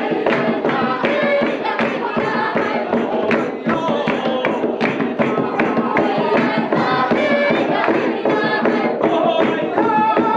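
Group of voices singing a Taiwanese Indigenous welcome song together, over a steady beat on a goblet-shaped hand drum.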